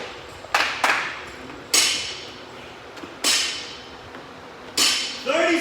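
Loaded barbell plates hitting the gym floor rep after rep: sharp metallic clanks, each ringing briefly, five in all, with the first two close together about half a second in.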